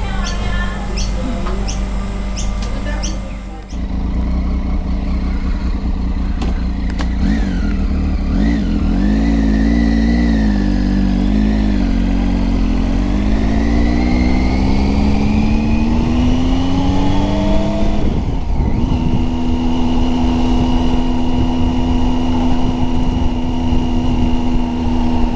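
Triumph Tiger 800XC's three-cylinder engine under way, its pitch rising as the bike accelerates, dropping briefly at a gear change, then holding steady at cruise with a low rumble of wind and road. It starts suddenly after a few seconds of birds chirping.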